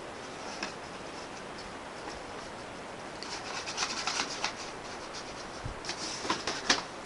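A cat nosing and rubbing at an object at close range: quick clusters of small clicks and scratchy rustles over a steady hiss, starting about three seconds in and bunching again near the end, with one sharper click just before the end.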